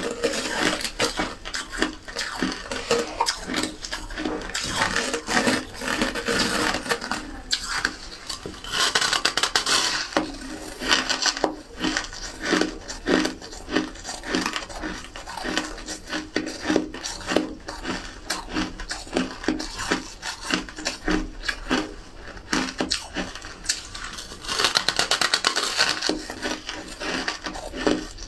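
Close-up crunching of a big chunk of crumbly white ice being bitten into and chewed: a dense run of crisp crackles, with longer, louder crunching bites about nine seconds in and again near the end.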